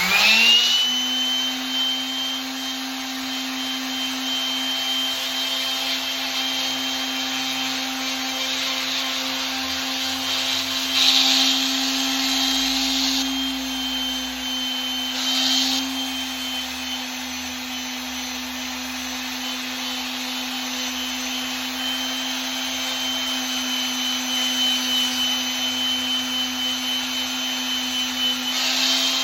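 Small electric sander starting up and running steadily with a constant whine, sanding a brass putter with 1500-grit paper for a smoother finish. The hiss of the paper grows louder briefly about eleven seconds in, again around fifteen seconds, and near the end.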